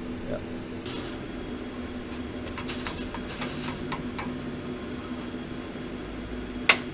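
Steady low workshop hum with a few light metallic clicks, then one sharp hammer blow near the end: a ball-peen hammer striking a screwdriver held against the steel gear-shift lever at its knob.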